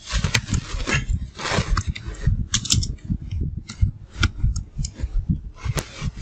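Scattered keyboard keystrokes, a few separate clicks, over a steady low rumble.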